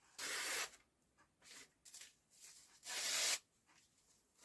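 Stainless steel blade of a folding knife slicing thin phone book paper to test its sharpness: two long cuts, one at the start and one about three seconds in, with fainter paper rustles between.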